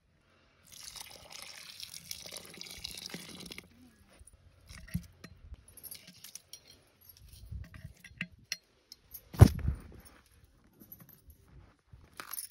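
Metal ladle working in a clay pot of steaming biryani: a few seconds of steady watery rushing near the start, then scattered scrapes and clinks, with one sharp knock about nine seconds in.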